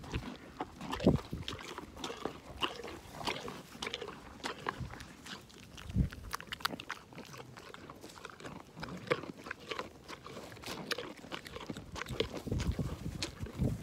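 Alpacas and a dog crunching raw carrot pieces fed from the hand, close to the microphone: a run of irregular crisp crunches and chewing, with an occasional dull thump.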